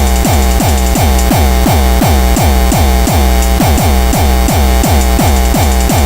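Hardcore electronic music: a heavily distorted kick drum hitting about three times a second, each hit sliding down in pitch, under a dense layer of noisy synths.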